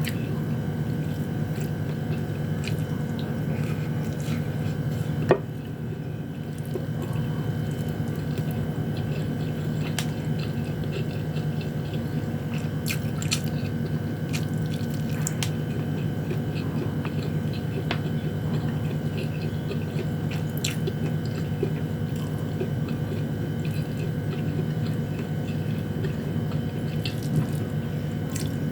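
A person chewing sardines and rice close to the microphone, with wet mouth sounds and scattered small clicks, and one sharp click about five seconds in. A steady low hum runs underneath.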